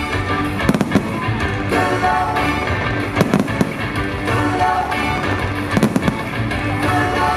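Fireworks show: several sharp firework bangs at irregular intervals over a loud music soundtrack with a steady bass line.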